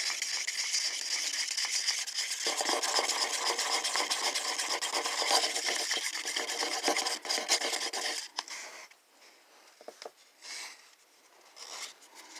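Wooden craft stick stirring orange washable paint in a paper cup, scraping round the sides and bottom in a steady wet rubbing. About eight seconds in the stirring stops, leaving a few short scattered scrapes and taps.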